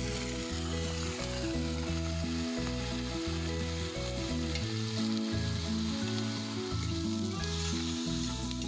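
Raw chicken pieces sizzling as they are scraped from a plate into a hot aluminium pot and stirred with a spoon. Background music with a low, stepping bass line plays over it.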